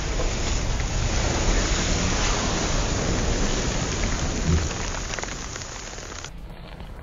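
A big heap of matches burning all at once in a fireball: a loud, dense rush of fire noise with one low thump about four and a half seconds in, fading near the end.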